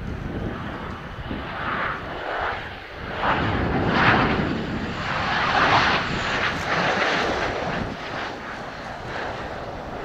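Twin General Electric F404 turbofan engines of an F/A-18C Hornet on final approach for landing. The jet roar swells about three seconds in as the fighter passes close, is loudest between about four and six seconds, then eases off as it comes down to the runway.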